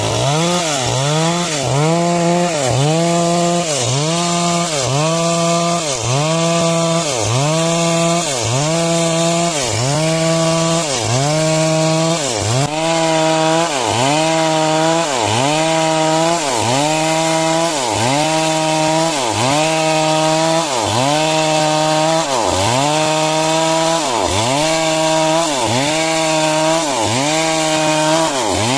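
Two-stroke chainsaw running hard while cutting lumber. Its engine pitch dips sharply and recovers just under once a second, in an even rhythm, as the saw bogs and picks up again.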